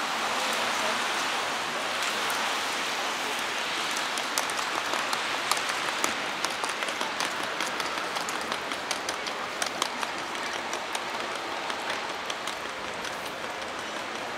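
Heavy rain falling steadily. From about four seconds in, many individual drops tick sharply close by, thinning out again near the end.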